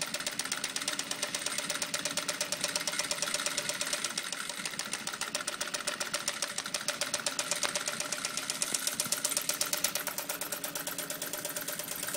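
Industrial direct-drive sewing machine stitching continuously during free-motion quilting: a rapid, even clatter of needle strokes over the steady hum of its motor.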